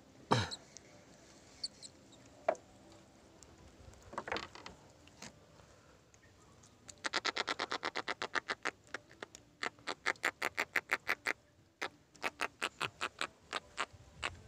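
A kerong-kerong, a terapon grunter fish just caught and held out of the water, grunting in rapid trains of short pulses, about nine a second, in runs of a second or two during the second half.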